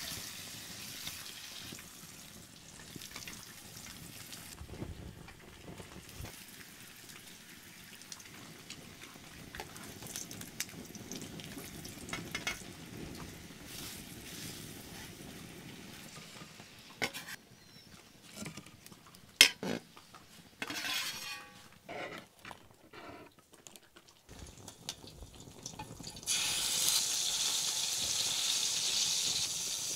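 Sweet potato slices sizzling in oil in a stainless steel pan over a wood fire, with a knife scraping and clinking against the pan as the slices are worked. About 26 seconds in the sizzle jumps suddenly louder as seasoned deer tenderloin slices go into the hot pan.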